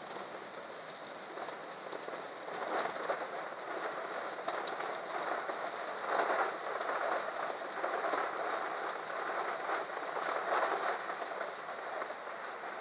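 Heavy downpour of rain, a steady hiss that swells and eases in waves.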